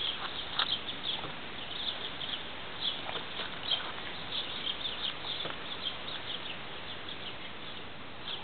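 Small birds chirping over and over in short high notes, with a few soft taps scattered among them.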